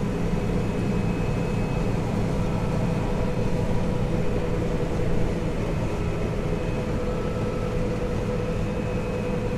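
Combine harvester (header) running steadily under load while harvesting wheat: an even machine drone with a few held tones.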